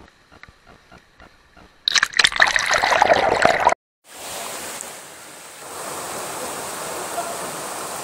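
Rushing water of a mountain stream and waterfall. About two seconds in comes a loud, rough burst of close water noise that cuts off abruptly, and after a short break the steady rush of a waterfall takes over, growing louder partway through.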